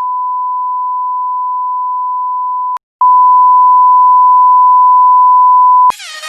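Steady, single-pitched electronic alert beep of an emergency broadcast, held in two long tones of about three seconds each with a short break between them, the second louder. Electronic dance music starts near the end.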